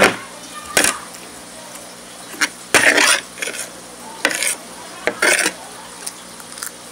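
Metal spoon scraping and clinking against a ceramic plate in about seven short bursts, the longest and loudest about three seconds in, as the last grains of rice are gathered up.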